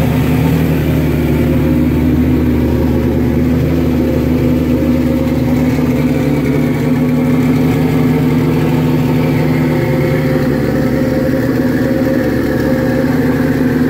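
Suzuki GS1100E's air-cooled inline-four engine idling steadily on a little choke, running evenly on its first start after 24 years of storage.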